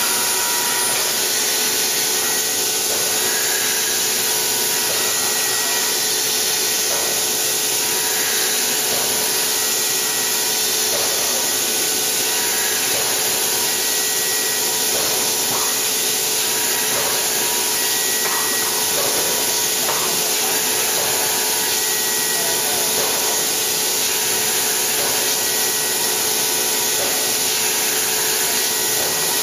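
Quick Jet VL1S micro milling machine rough-milling HRC52 hardened steel with a 4 mm bull-nose end mill at 14,400 rpm. It makes a steady high cutting whine over hiss, with a faint change in the sound every couple of seconds as the tool passes across the block.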